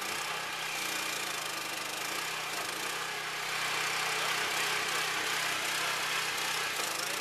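Engine of a trailer-mounted cable tool well-drilling rig running steadily while the rig drills.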